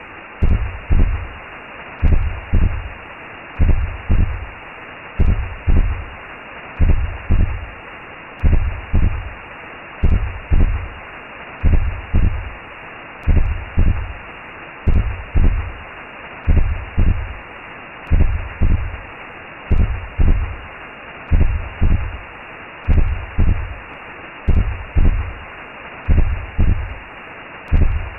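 Recreated womb sound for lulling a baby: a slow heartbeat of paired low thumps, about one pair every second and a half, over a steady rushing whoosh.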